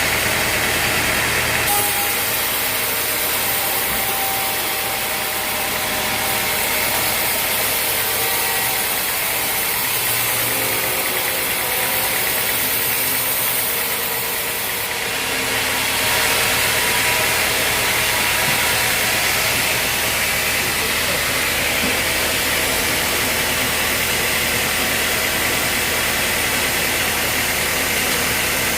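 An engine running steadily, with a hiss in the highs that changes about two seconds in and again about fifteen seconds in.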